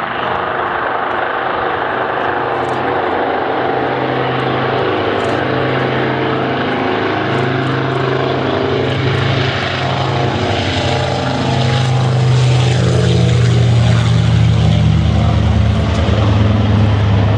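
Nord Noratlas transport's two radial piston engines and propellers running as the aircraft rolls along the runway, a steady pitched engine sound that grows louder and deeper about twelve seconds in.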